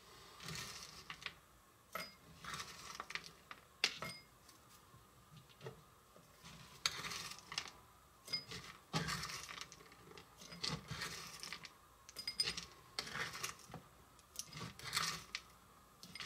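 Metal spoon scraping chopped toffee pieces across a plastic cutting board and clinking against a small glass bowl: irregular scrapes and rattles with a few light ringing clinks.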